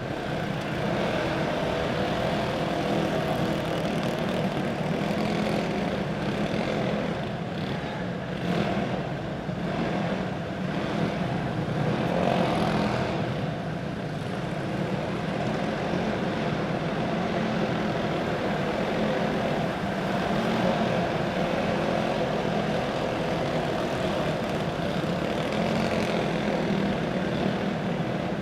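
Several racing kart engines running together on a dirt oval, a steady drone that swells slightly now and then.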